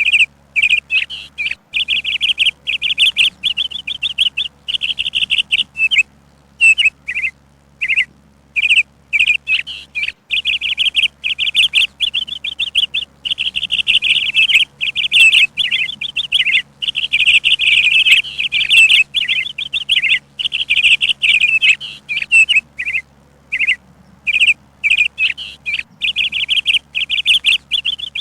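Songbird chirping in quick, rapid trills of short notes, nearly continuous with brief pauses.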